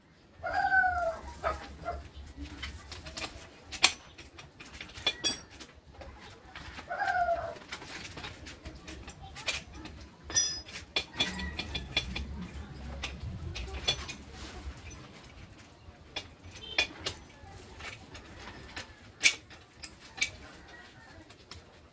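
Scattered clicks, knocks and clinks of hands-on work, with two short pitched bird calls, one about a second in and another about seven seconds in.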